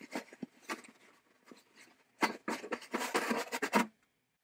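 Gritty scraping and rustling as an old rubber sleeve is worked out of the metal cabinet of a 1940s Auto-Lite spark plug cleaner. A denser spell of crackly scraping starts about two seconds in and lasts over a second, then stops.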